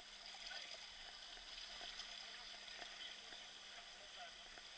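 Faint moving water, a low trickling and sloshing with a few small clicks, over a steady faint hum.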